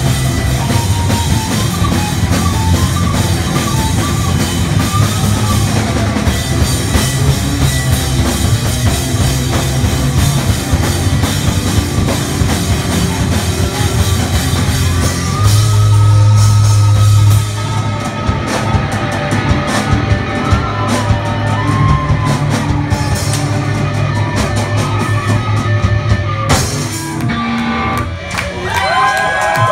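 Rock band playing, with drum kit and guitar, loud and steady, dropping back briefly near the end.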